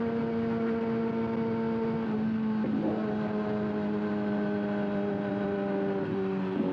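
Kawasaki ZX-6R inline-four with an aftermarket SC-Project exhaust, running at steady high revs under way. Its pitch holds, then drops a little about two and a half seconds in and again near the end.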